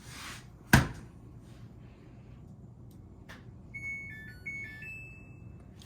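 A sharp knock under a second in, then a Samsung FlexWash washing machine's control panel playing its short electronic chime: a few beeps stepping between two pitches, ending on one higher held tone.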